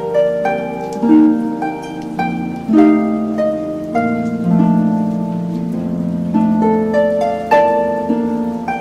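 Background music: a harp playing a gentle melody of plucked notes over sustained low notes.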